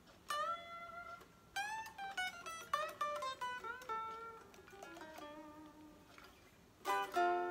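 Electric guitar freshly strung with Ernie Ball 9-gauge strings, played with a pick: a short lead phrase of single notes with string bends and a downward slide, then a strummed chord near the end.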